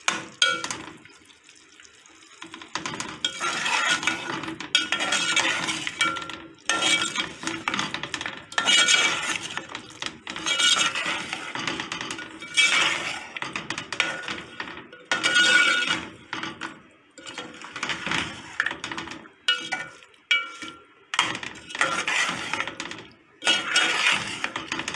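A metal spoon scrapes and clinks against a metal pot in irregular strokes as mutton pieces are stirred and fried down (bhuna) in their masala.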